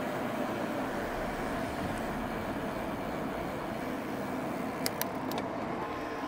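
Steady rush of wind and tyre noise on the camera microphone from an e-bike rolling fast on a descent, with a few sharp clicks about five seconds in.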